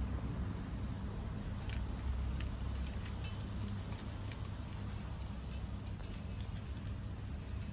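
Kittens eating dry kibble and wet food from a metal plate: scattered small clicks and crunches of chewing and of the plate, over a steady low rumble.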